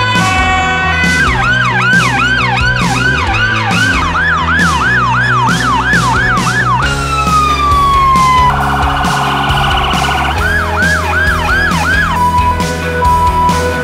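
Emergency-vehicle sirens cut together one after another over background music with a steady beat. Mostly fast rising-and-falling yelp sweeps, with a brief steady two-note tone at the start, a long falling wail about halfway through followed by a rapid warble, and a steady held tone near the end.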